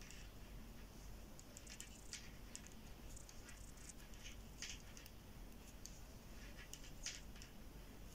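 Faint, irregular light clicks and ticks of two metal knitting needles touching as knit stitches are worked.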